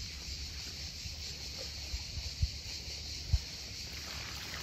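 Outdoor ambience: wind rumbling on a phone microphone under a steady high hiss, with two brief low thumps about two and a half and three and a half seconds in.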